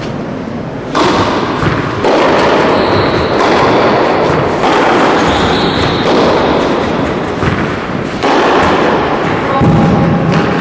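A tennis rally played indoors with rackets, beginning with the serve about a second in, then the ball struck back and forth at intervals of roughly a second or more. Each hit sets off a loud wash of noise that hangs on in the hall until the next.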